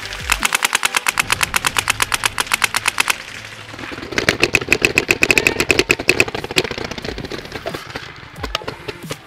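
Paintball marker firing rapid strings of shots, about a dozen a second: one long burst, then a second fast burst about four seconds in, with a few single shots near the end.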